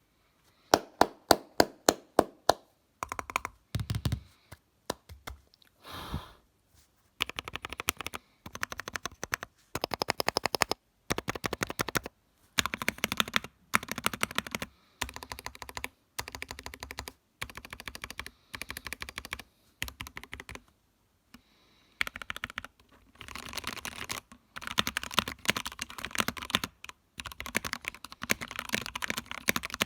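Typing on a TOFU64 mechanical keyboard with Gateron Yellow linear switches in an aluminium case. About seven separate, sharp keystrokes come first, roughly three a second, then runs of fast typing broken by short pauses.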